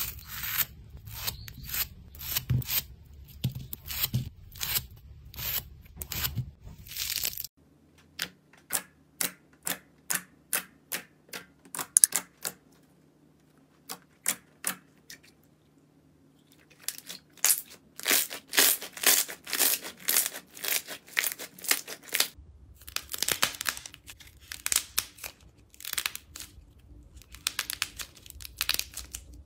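Scissors snip through a foam sponge with crisp crunching cuts, several a second. Then slime is pressed and squeezed by hand, making sharp pops and crackles, first about two a second, then a quieter spell, then dense crackling to the end.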